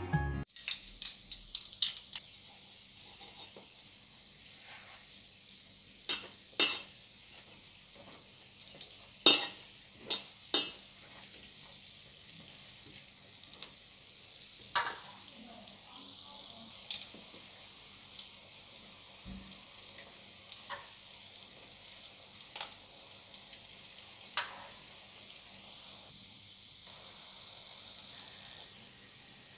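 Berliner doughnuts deep-frying in a pot of oil over low heat: a steady sizzle with scattered sharp clicks and pops, the loudest about nine seconds in.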